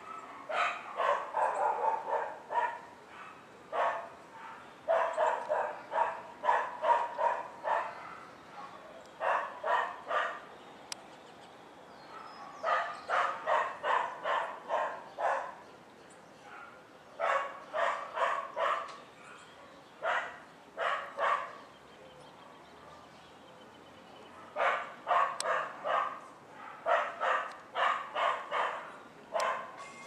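A small dog barking in quick runs of several yaps about three a second, again and again with short pauses between runs.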